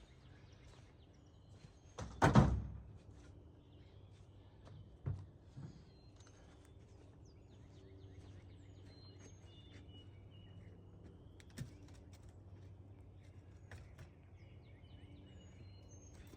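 Birds chirping, with one loud thump about two seconds in and a few quieter knocks afterwards.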